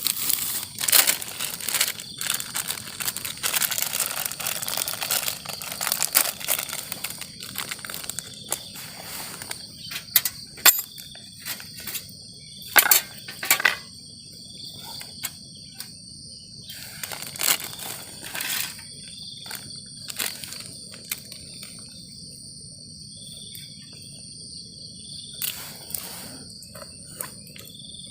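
Night insects such as crickets chirping steadily in high, even tones. Over them, rustling and crinkling handling noises with sharp clicks, busiest in the first half and sparser later.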